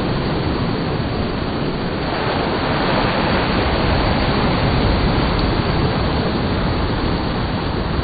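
Small surf breaking and washing up a sandy beach: a steady rush of waves that swells a little about halfway through.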